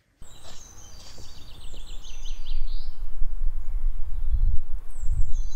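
Wind buffeting the microphone with a low rumble that builds over the first few seconds. Birds chirp in quick runs of high notes through the first half and again near the end.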